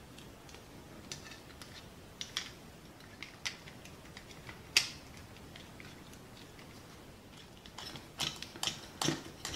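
Scattered sharp clicks and taps of hard plastic parts being handled and pressed together as a toy's circuit board is refitted into its plastic housing. The loudest click comes a little before halfway, with a quick run of clicks near the end.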